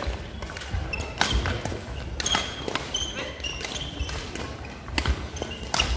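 Badminton rally: sharp cracks of rackets striking the shuttlecock, one of them an overhead smash right at the start, mixed with short squeaks of court shoes on the wooden floor and footfalls.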